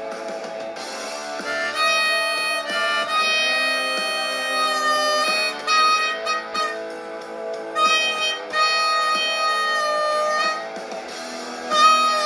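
Blues harmonica played with cupped hands: long held notes that change every second or two, in phrases with short breaks between them.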